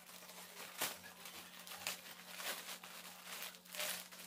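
A plastic courier mailer bag being slit open with a kitchen knife: a series of short crinkling and tearing rustles.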